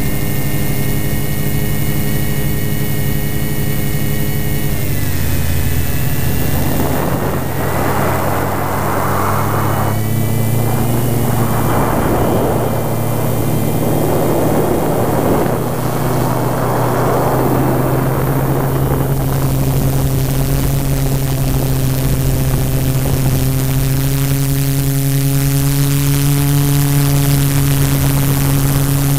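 Multirotor drone's motors and propellers whining steadily, the pitch dropping about five seconds in, with a rushing noise over the middle stretch.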